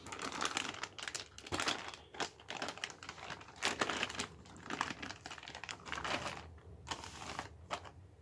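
Clear plastic packaging bags crinkling and rustling as they are handled, in irregular crackling stretches of a second or so.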